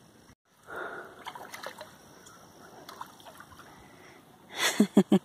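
A small traíra splashing and thrashing at the water's surface as it is reeled in to the bank, with a quick run of several loud splashes near the end.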